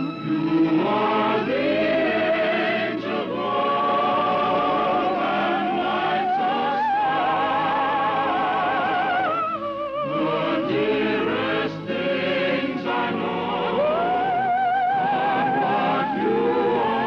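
Music: a choir singing long held phrases with vibrato over orchestral accompaniment, on an old radio broadcast recording with a dull top end.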